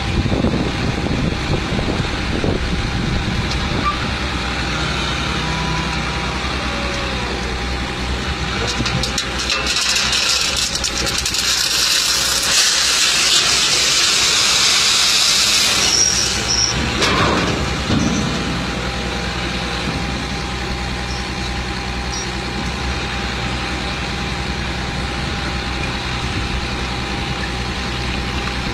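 Diesel tipper truck's engine running steadily while the tipper body is raised. In the middle, a loud rushing hiss lasts several seconds as the load of soil slides out of the tipper.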